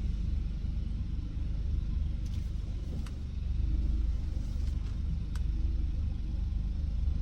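Low, steady rumble of a car moving slowly, heard from inside the cabin, with a few faint clicks.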